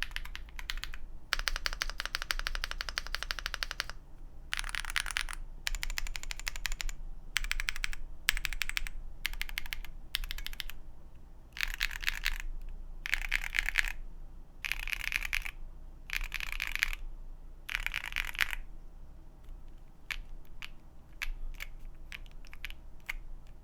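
Typing on an Akko 75% custom mechanical keyboard with KNC Keys Green Jacket linear switches and doubleshot PBT keycaps: bursts of fast keystrokes with short pauses between them, then slower single key presses near the end.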